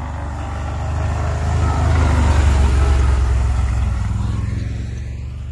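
A motor vehicle's engine running close by, a low rumble that swells louder about two seconds in and fades again as it passes.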